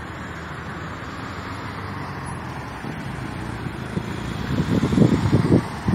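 Car driving along a road: steady road and engine noise that grows louder over the last few seconds, with wind buffeting the microphone about five seconds in.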